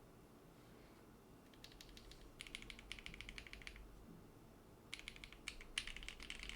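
Rapid typing on a mechanical keyboard, two quick runs of key clicks with a short pause between them.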